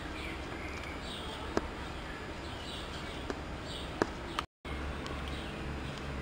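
Chinese leopard lapping water from a pool, with a few sharp, wet clicks of its tongue at the water.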